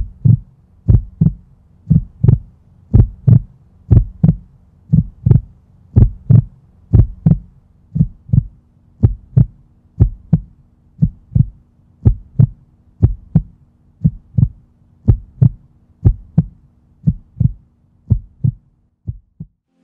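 Heartbeat, a double lub-dub beat about once a second over a low steady hum; near the end the hum drops away and the last beats falter and stop.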